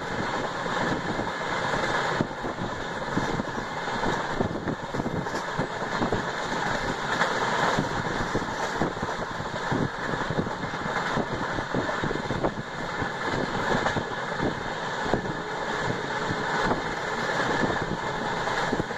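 Running noise of an LHB passenger coach at speed, heard from on board: a steady rumble and rush of wheels on the track, with many small irregular knocks.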